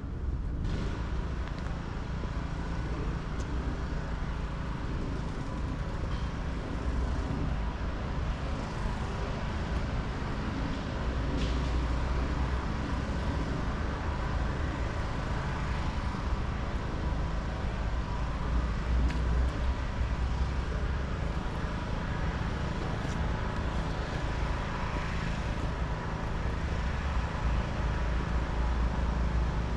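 Steady low rumble of road traffic, a continuous wash of passing cars.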